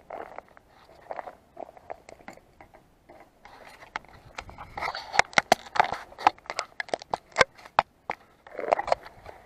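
Close handling noises: soft scrapes and rustles, then a rapid, irregular run of sharp clicks and taps about halfway through, followed by a softer scrape near the end.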